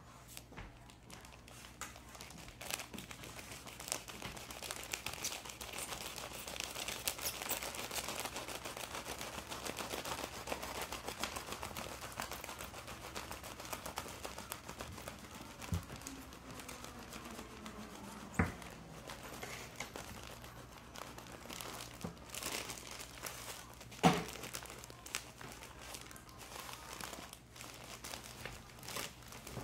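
A long watermelon knife sawing through a plastic-wrapped pack of soft tissues: the plastic wrap and the paper crinkle and rasp steadily, most strongly in the first half. A few sharp knocks come about halfway and again later.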